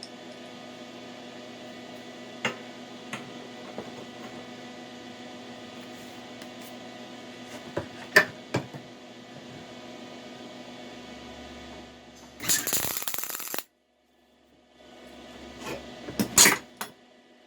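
A steady hum with a few light clicks, broken by two short bursts of welding-arc crackle about twelve seconds in and again near the end, as tack welds are laid on a steel mini-bike frame.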